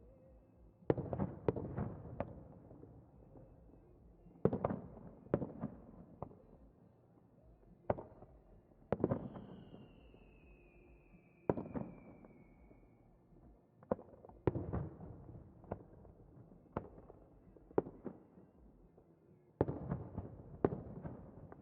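Aerial fireworks bursting one after another, about fifteen booms in irregular clusters, each trailing off in a rumble. A falling whistle is heard from about nine seconds in.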